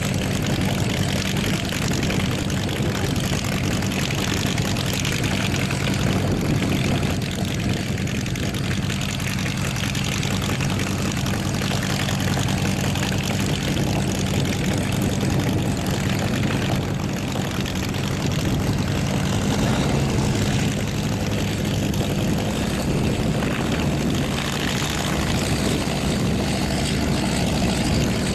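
Focke-Wulf Fw 190 A's 14-cylinder radial engine running steadily on the ground, its propeller turning, with no change in pace.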